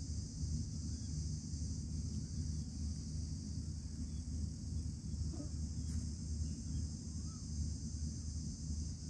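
A steady high-pitched insect chorus with a low rumble beneath it. A few faint, short chirps that rise and fall come through now and then.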